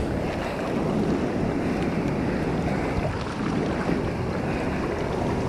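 Sea surf washing and churning in the shallows right at the microphone, with wind noise on the microphone: a steady rushing noise.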